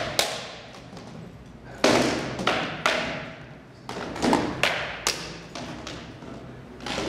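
Rattan swords striking shields and armour in SCA heavy armoured combat: irregular clusters of sharp cracks and thuds, each ringing on in the echo of a large hall.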